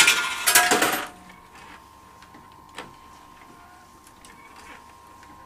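Coins clattering in a coin pusher arcade machine for about the first second. Then the machine runs quietly, with a faint steady whine and a single sharp click.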